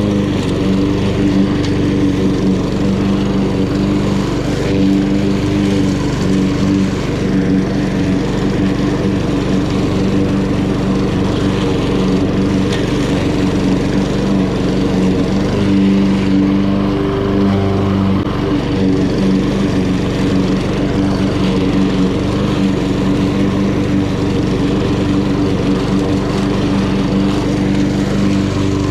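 Honda GCV170 single-cylinder four-stroke engine on an HRN216 self-propelled lawn mower, running steadily at full mowing speed.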